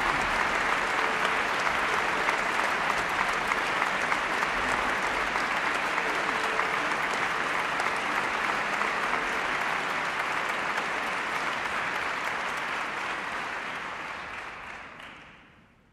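Concert audience applauding steadily, the clapping fading away over the last few seconds.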